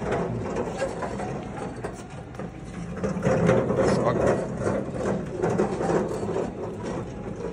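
Hardware-store flatbed cart being pushed along a concrete floor, its wheels and steel frame rattling continuously as it rolls.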